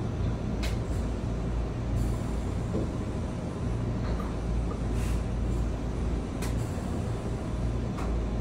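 Steady low rumble of background machinery or room noise, with a few faint short clicks scattered through it.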